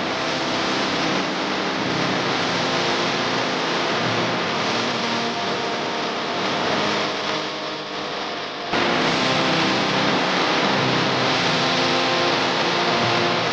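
Background music, a dense track with a steady wash of sound under shifting notes, with a sudden cut about two thirds of the way through.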